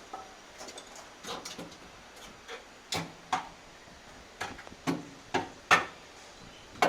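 Irregular hammer knocks on a car's sheet-metal bodywork, about a dozen short strikes at an uneven pace, the loudest near the end.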